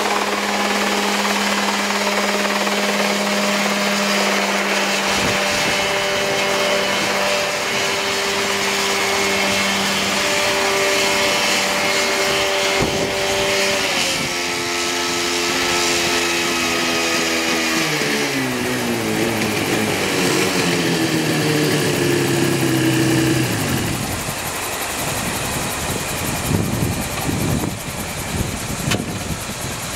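Mosquito Air ultralight helicopter's two-stroke engine and rotor running steadily in a low hover, then throttled back about halfway through. The pitch falls over roughly ten seconds, and the engine settles into an uneven idle as the rotor slows.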